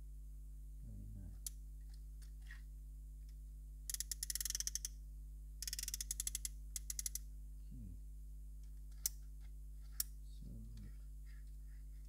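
Plastic toy excavator being handled: two runs of fast rattling clicks from its moving plastic parts about four and six seconds in, then two single sharp clicks, over a steady low electrical hum.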